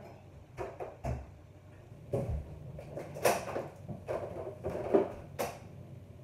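Kitchen cupboard doors and items knocking and clunking as someone searches for an ingredient: a series of separate knocks, the loudest about three and five seconds in.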